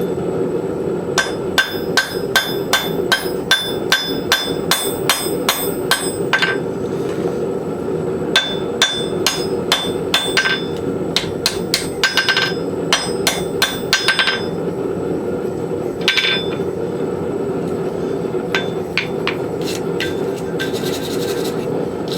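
Hand hammer striking the hot steel of a horse hoof rasp on an anvil while the tomahawk eye is being centered. Each blow rings out, coming in quick runs of about three a second with a short pause a third of the way in, then only occasional blows in the last third, over a steady roar from the forge.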